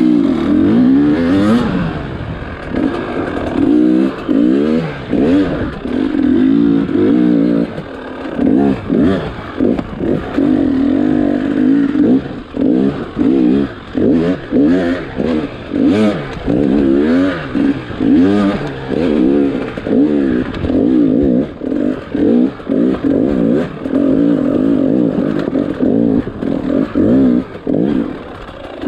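Dirt bike engine revving up and dropping off again and again as the throttle is opened and closed through the turns and obstacles of a dirt track. There is some clatter from the bike, heard close from on the bike.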